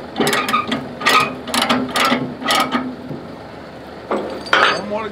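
Metal ratchet mechanism worked in repeated strokes, clicking about twice a second, with a louder clack about four and a half seconds in, over a steady low hum.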